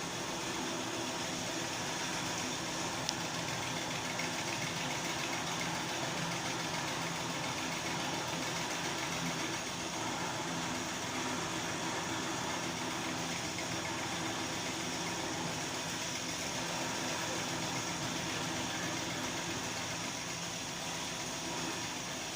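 Steady mechanical drone with a hiss, the background noise of a running machine, unbroken and without speech.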